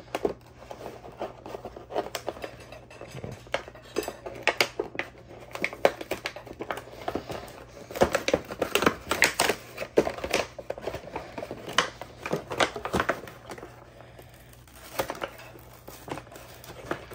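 Cardboard and clear plastic blister packaging of an action-figure box being handled, crinkling and crackling in irregular bursts, busiest about halfway through.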